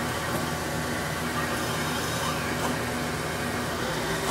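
Hardinge HLV CNC lathe running steadily, its spindle turning a rifle barrel while the tool makes a dry finishing cut on the tenon, with a low hum that comes and goes.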